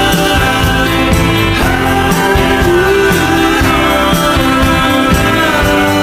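Background music with a singing voice.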